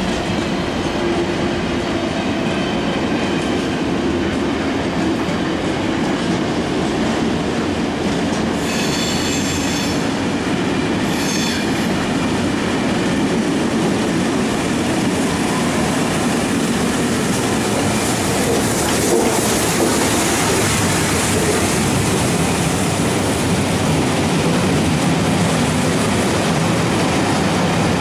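Trains passing through a station: a diesel-hauled container freight's wagons rumble and clatter by on a far line while the LMS Princess Royal class steam locomotive No. 6201 Princess Elizabeth runs in with its coaches. Two short, shrill tones sound about 9 and 11 seconds in.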